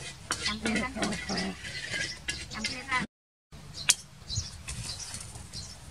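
Metal spatula clinking and stirring in a wok, with snatches of a person's voice in the first half. After a short break, a single sharp tap about four seconds in as an egg is cracked over the wok.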